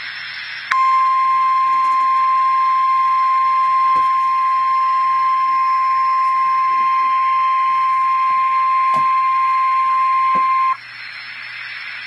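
NOAA Weather Radio warning alarm tone, a single steady 1050 Hz tone that starts just after the opening, holds for about ten seconds and cuts off suddenly near the end, with radio static hiss before and after. The tone signals that a warning message, here a tornado warning, is about to be read.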